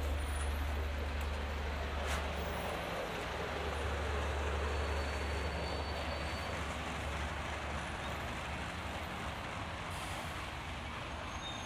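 Street traffic with a heavy vehicle's engine running close by: a steady low rumble under a broad hiss of road noise.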